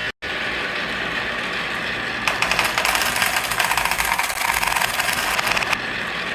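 Marbles clattering along a marble-run track: a dense, fast rattle of clicks that starts about two seconds in and stops abruptly about three and a half seconds later.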